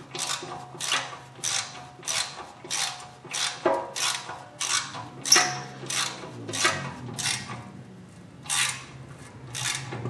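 Hand ratchet wrench clicking in repeated swings, about two a second, as the mounting bolts of a 2010 Dodge Grand Caravan's new rear wheel hub are run down tight.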